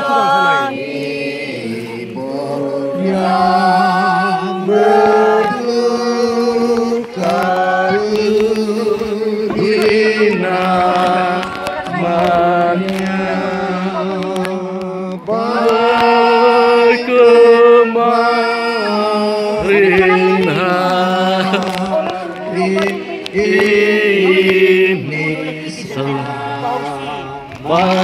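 A group of voices singing a slow hymn, holding each note for a second or more.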